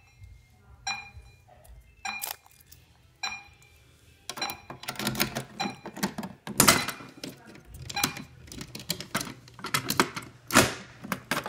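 EST Genesis fire alarm chime dinging about once a second, three or four times, then stopping; the owner says this chime isn't working right and sounds weird. After it stops comes a run of clicking and rattling.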